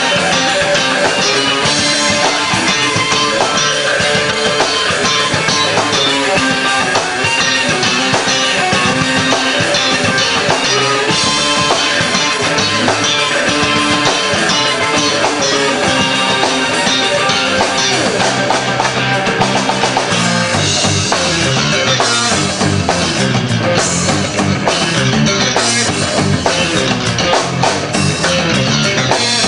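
Rock band playing live and loud: electric guitar over a drum kit, with no singing. The drums grow heavier about two-thirds of the way through.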